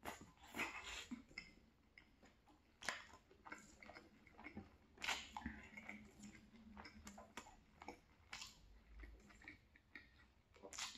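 Quiet chewing of a mouthful of chicken and rice, with irregular wet mouth clicks and smacks.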